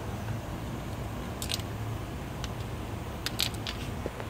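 A few short, light metallic clicks as valve bridges are lifted off a Volvo D13's valve train and set aside, once about a second and a half in and a quick cluster near the end, over a steady low hum.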